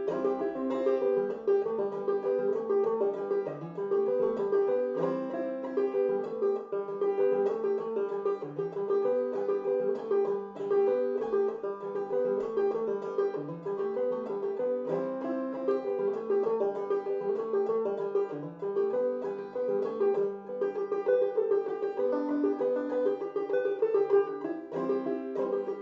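Five-string banjo played clawhammer style in open G tuning, an old-time fiddle tune picked in a steady, even rhythm, with the high drone note ringing again and again through the melody.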